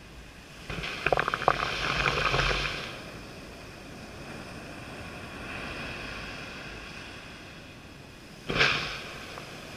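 Shallow surf washing up the sand close to the microphone: a loud wash with a few sharp splashes about a second in, a softer swash in the middle, and a short splash near the end.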